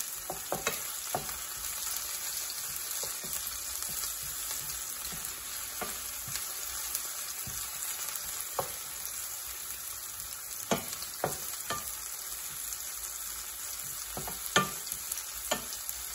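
Sliced onion and jalapeño sizzling in hot oil in a frying pan, being sautéed until slightly soft. A wooden spoon stirs them, knocking against the pan now and then, most sharply near the end.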